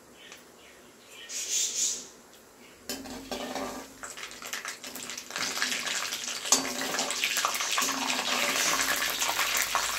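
Mustard and fenugreek seeds frying in hot sesame oil in a pan, sizzling and spluttering as the mustard pops during tempering. The sizzle starts about three seconds in and grows louder, with small clicks of a spoon against the pan.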